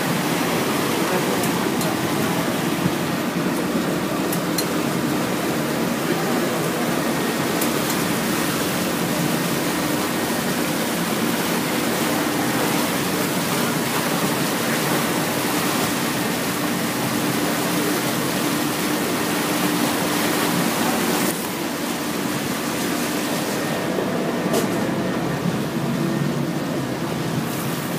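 River sightseeing boat under way: water rushing and churning in the propeller wake over the steady hum of the boat's engine.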